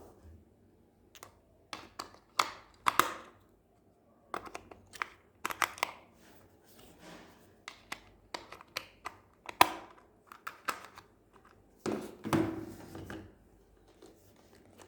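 Toy packaging being handled and opened: irregular clicks, taps and brief tearing and rustling sounds, with a longer scraping rustle about twelve seconds in.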